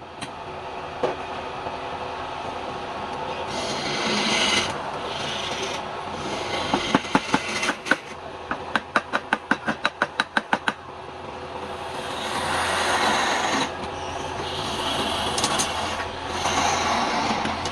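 Wood lathe motor running with a steady hum while a turning tool cuts into spinning palm wood in several scraping bursts. Midway comes a quick run of sharp knocks, about five a second.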